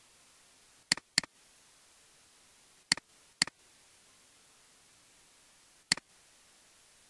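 Computer mouse clicking five times over a faint steady hiss: a quick pair about a second in, another pair about three seconds in, and a single click near the end.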